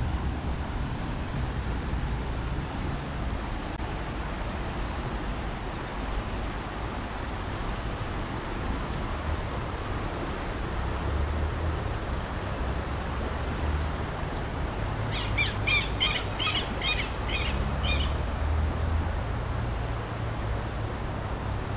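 Steady rush of a fast-flowing river, with a low rumble underneath. About three-quarters of the way through, a bird gives a rapid run of about ten sharp, high notes over some three seconds.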